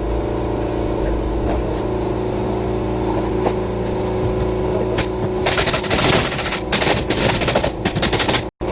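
A machine hums steadily. About five and a half seconds in, rapid clattering and rattling breaks in over it.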